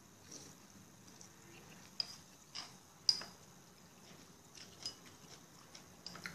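A few faint, sharp clicks and taps of utensils against dishes, the loudest about two and three seconds in.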